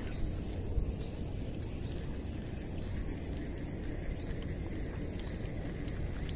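Outdoor swamp ambience: a steady low rumble, with a short, high, rising chirp repeated every half second or so from a small animal calling.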